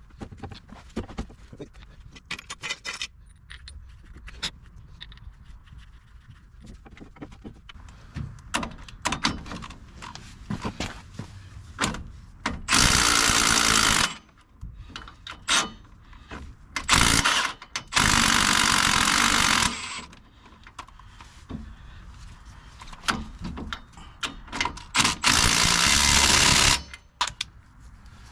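Hand tools clicking and clinking as a stubborn bolt is worked tight a fraction of a turn at a time. Three times the clicking is broken by a loud, steady hissing noise lasting about one and a half to two seconds.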